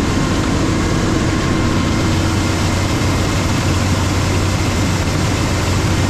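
Heavy farm machine's diesel engine running steadily, a constant drone with an even hum and no change in speed.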